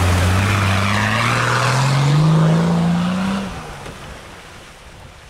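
Off-road SUV engine pulling hard through a deep river ford, its pitch rising steadily as it revs, over water rushing and splashing around the body. The sound drops away suddenly about three and a half seconds in.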